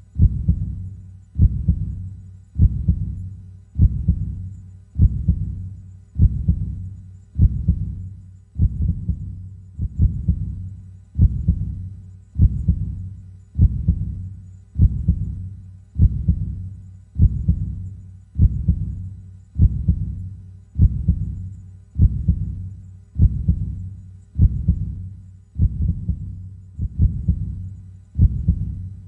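Slow, steady heartbeat, each beat a low double pulse (lub-dub) that dies away quickly, coming a little under once a second.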